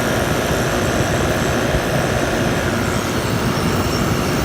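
Frigidaire 8000 BTU window air conditioner running with its fan on high and compressor on: a steady rush of air over a low hum and a faint steady whine.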